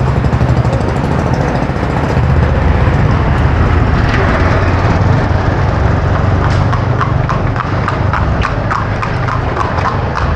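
Horse hooves clip-clopping on the paved street as a horse-drawn cart comes up from behind, starting about six seconds in at roughly three to four hoofbeats a second, over a steady low rumble of street noise.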